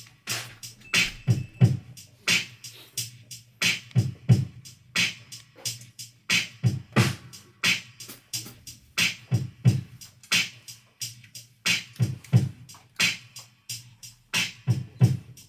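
A band playing a syncopated groove: sharp drum hits over low kick thuds and a bass line, with no clear melody on top.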